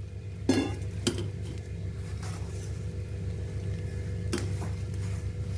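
Spoon stirring and scraping wet rice-flour dough in a stainless steel bowl, with a few sharp clinks of the spoon against the metal, over a steady low hum. The boiling water is being worked into the flour for the dough.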